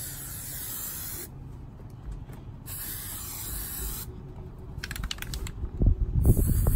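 Aerosol can of washable chalk spray paint hissing in three bursts as it is sprayed onto a truck's door panel. A low, uneven rumble comes in near the end and is louder than the spray.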